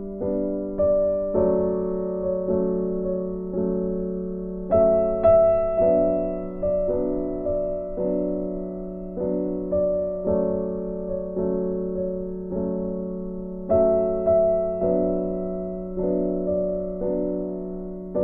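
Background music: a gentle piano melody, notes struck about twice a second and left to ring.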